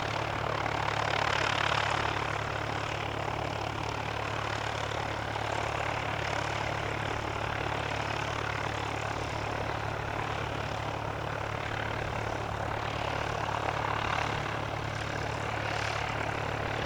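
Cessna Citation CJ3+ business jet's twin Williams FJ44 turbofan engines running, a steady jet rush that swells slightly about a second in.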